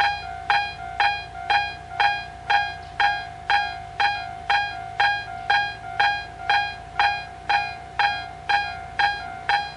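Railway level crossing alarm ringing about twice a second, each ding fading before the next over a steady ringing tone.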